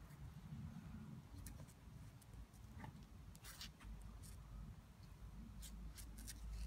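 Two dogs play-wrestling on stone paving: faint scattered clicks and scratches from claws and mouthing, over a low rumble.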